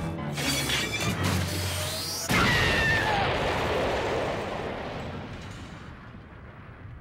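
Cartoon explosion sound effect: a sudden loud blast about two seconds in, fading away slowly over several seconds, with background music before it.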